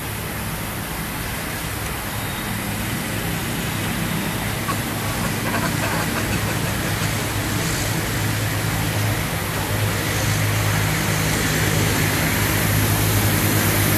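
Steady outdoor background noise: an even hiss with a low, steady hum beneath it, growing a little louder toward the end.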